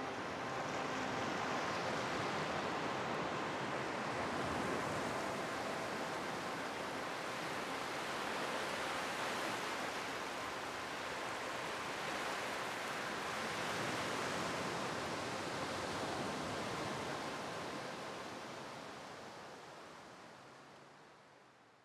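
Sea waves washing onto a beach, a steady rush that rises and falls in slow swells, then fades away over the last few seconds.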